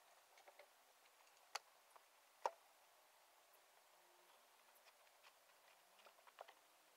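Near silence with a few faint sharp clicks, the two clearest about a second and a half and two and a half seconds in, and a small cluster near the end.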